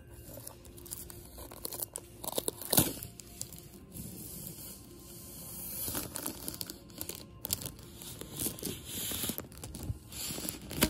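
A roll of laminated peel-and-stick marble contact paper being unrolled and handled: the vinyl sheet and its plastic wrap crackle, rustle and crinkle irregularly, with a few sharper snaps, the loudest about three seconds in and another at the very end.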